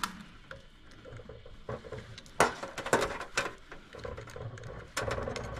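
A few sharp clicks and taps from handling small parts and tools, the loudest three coming about half a second apart near the middle.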